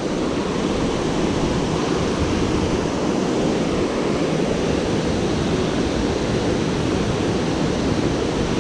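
Steady rushing of water pouring over a dam's man-made waterfall.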